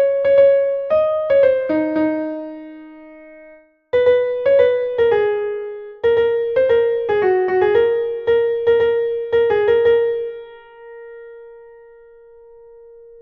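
Software piano from sheet-music playback playing a single-line melody, one note at a time. The notes die away into a short pause a little under four seconds in, then a new phrase starts and ends on a long held note that slowly fades.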